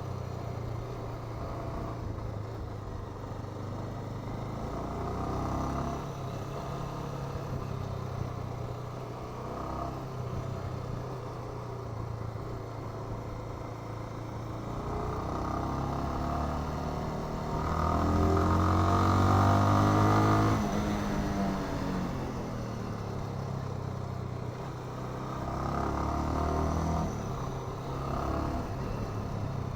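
Bajaj Avenger 220 cruiser's single-cylinder engine and exhaust running under way. It is loudest about two-thirds through, where it revs up under acceleration and then eases off, with a smaller rev-up near the end.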